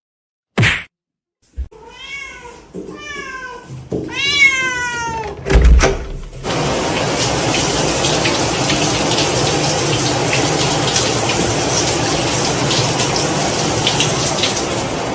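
A cat meows three times, each call falling in pitch, followed by a loud thump. A steady rushing noise then runs on for the rest of the time.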